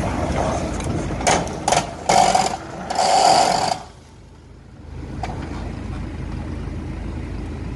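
Hyundai Terracan SUV crawling over rough dirt with its engine running. From about a second in, it gives several sharp clunks and two grinding screeches, the sort of noise that means costly damage. After a brief lull the engine runs on steadily.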